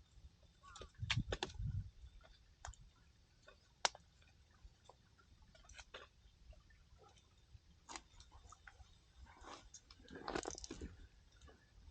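Firewood crackling in a campfire: irregular sharp pops and snaps, with a louder cluster of knocks and crackles about a second in and again near the end.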